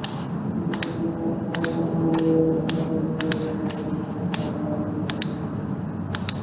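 Computer mouse and keyboard clicks, sharp and irregular at about two a second, over a steady low background hum.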